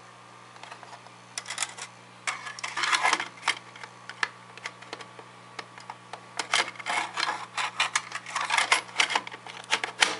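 Smith Corona Coronet 12 electric typewriter being typed on: its type hammers strike in quick irregular runs of clicks, with a lighter, sparser stretch around the middle. A steady low hum runs underneath.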